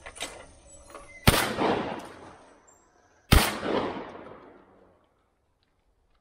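A shotgun fired twice at a pair of clay targets, the shots about two seconds apart, each with a long echoing tail that fades out.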